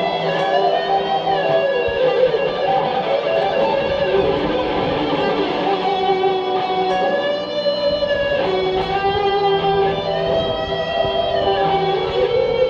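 Electric guitar playing a melodic lead of held notes, with bends about one and a half seconds in and again near ten seconds, over a steady lower part.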